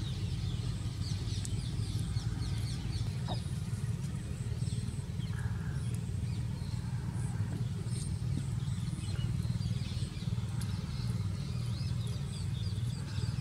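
A steady low rumble, with many small birds chirping quickly and high in the background.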